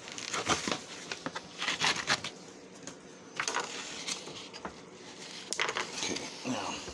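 A blade scoring a line into cardboard box stock: a quick run of short scraping crunches for about two seconds. Quieter cardboard handling and a few more scrapes follow.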